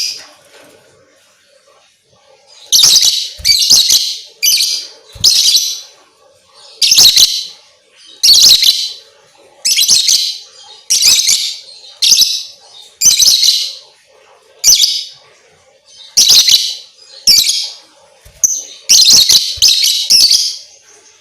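Lovebird giving loud, shrill, harsh chirping bursts, about one every second, starting about two and a half seconds in.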